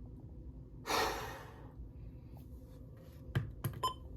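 A person's sigh, one audible exhale lasting under a second, about a second in, followed by a few faint clicks near the end.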